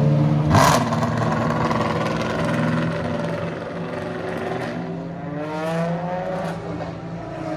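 Ferrari track cars' engines on the circuit. A steady low engine note is cut by a sharp crack about half a second in, then engines rev up again and again, their pitch climbing in repeated sweeps as they accelerate through the gears.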